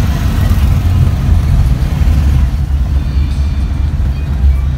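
Steady low rumble of a motorcycle tricycle's engine and road noise heard from the passenger seat. Faint music comes in about halfway through.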